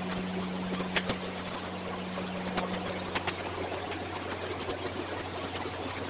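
Quiet classroom room tone: a steady low hum under an even hiss, with a few faint clicks.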